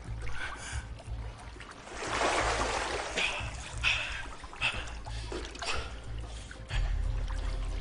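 Water sloshing and splashing around a man wading in it, with a louder splash about two seconds in, over a steady low musical drone; the man cries out a few times in the middle.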